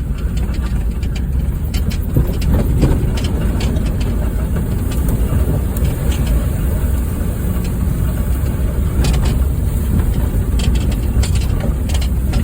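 A stripped-down Honda Fit driving over a rough dirt road: a steady low rumble of engine and tyres, with scattered knocks and rattles, a cluster of them about nine seconds in and more near the end.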